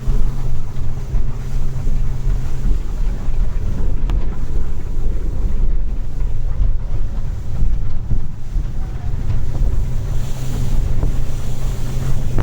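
Motorboat running underway: a steady low engine drone under rushing water and hull noise, with wind buffeting the microphone.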